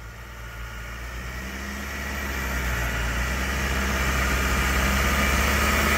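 Jeep Wrangler's engine running under load as it tows a boat on its trailer up a ramp, growing steadily louder as it comes closer.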